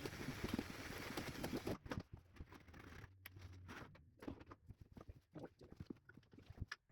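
Hand drain snake being worked through a clogged drain pipe: irregular scraping and clicking of the cable, with a steady hiss for about the first two seconds.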